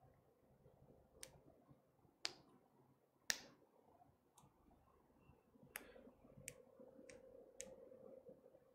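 Near silence in a small room, broken by about eight short, sharp clicks at uneven intervals, the loudest a third of the way in; a faint steady hum comes in from about two-thirds of the way through.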